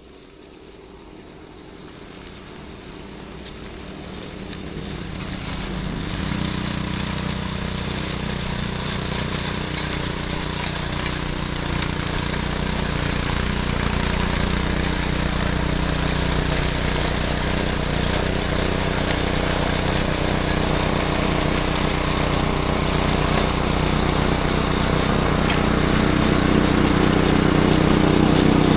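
Small gasoline engine of a snowblower running steadily, growing louder over the first six seconds or so and then holding at a steady level.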